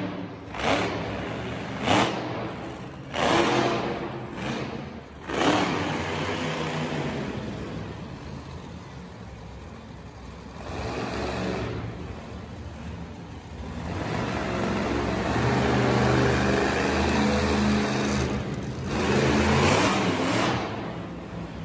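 Monster truck engine revving hard in repeated swells, with several sharp bursts of throttle in the first few seconds, then a dip and a longer sustained rev from about two-thirds of the way through.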